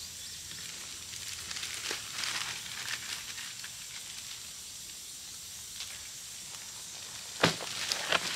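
Clear plastic wrapping crinkling and rustling as a rolled inflatable paddleboard is pulled out of it and unrolled, with two sharp slaps near the end as the board is handled.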